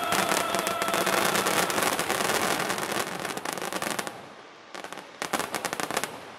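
Aerial fireworks crackling densely, a rapid mass of small pops, that thins out about four seconds in, then two short last flurries of crackle before the display dies away.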